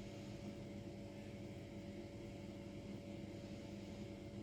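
Faint, steady room hum: a constant drone with a couple of held tones under a light hiss, from some machine running in the room.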